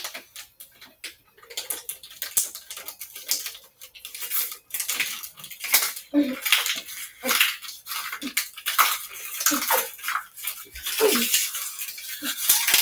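Two people gulping down water fast from thin plastic water bottles, the bottles crinkling and crackling as they are squeezed and collapse.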